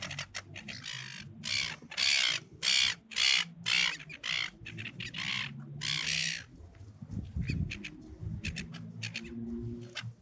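Silver gulls calling: a run of harsh, repeated squawks through the first six seconds or so, thinning to a few fainter calls later.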